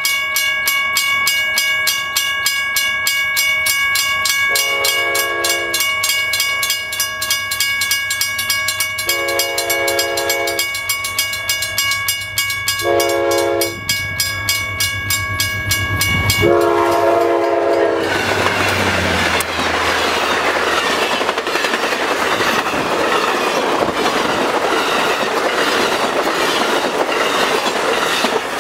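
Amtrak GE P42DC locomotive sounding its horn four times as it approaches a crossing: long, long, short, long, the grade-crossing signal. The bilevel Superliner passenger cars then roll past with steady wheel-on-rail noise and clickety-clack.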